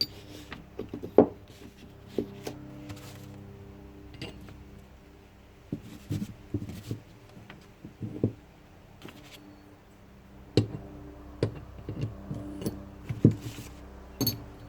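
Irregular knocks and clinks of metal transmission parts being picked up, moved and set down on a work surface, over a steady low hum.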